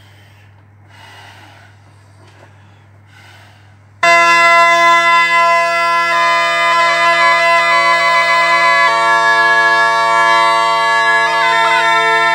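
Restored Sicilian zampogna a paro, tuned in B-flat, with plastic double reeds in its chanters and cane single reeds in its drones. After a few faint puffs it sounds all at once about four seconds in: steady drones under a melody stepping between notes on the chanters.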